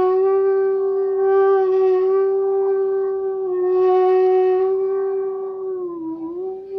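Bansuri (bamboo transverse flute) holding one long, breathy note, then bending briefly down in pitch and back up about six seconds in. The bend is a meend, the slow glide between notes used in Hindustani music.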